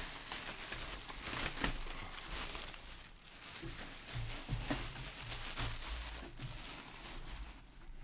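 A thin plastic bag crinkling and rustling as it is pulled and bunched off a boxed appliance.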